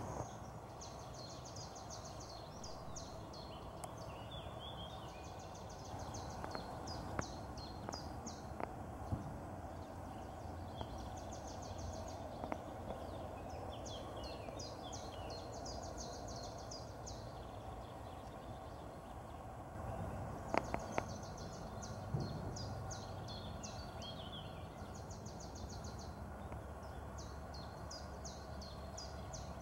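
A songbird singing a short phrase of rapid high notes, repeated every few seconds, over steady outdoor background noise.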